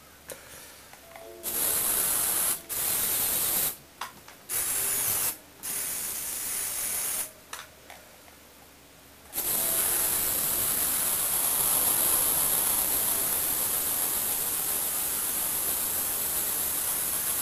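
Electric motor and plastic gear train of a Lego Technic tractor model whirring with a high-pitched, hissy whine, in short stop-start runs at first and then running continuously from about nine seconds in as the model drives on a wooden floor.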